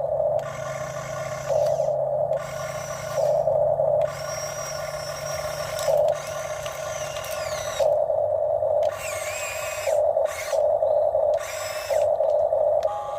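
Huina RC excavator's electric motors whirring in short stop-start bursts of about a second each, some with a high whine that slides in pitch, over a steady low hum.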